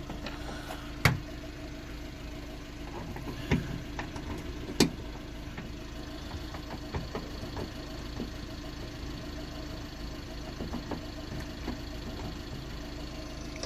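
A few sharp metallic clicks and knocks, the loudest about one, three and a half and five seconds in, as a gas boot strut is fitted onto the tailgate's mounting points. Under them runs a steady engine-like hum.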